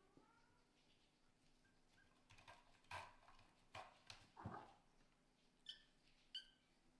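Faint, quiet sounds of kittens: a few soft knocks and scuffles around the middle, then two short, high-pitched kitten mews near the end.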